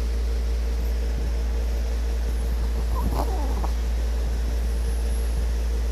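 A sleeping pet snoring, with a short pitched breath or whimper about three seconds in, over a steady low hum.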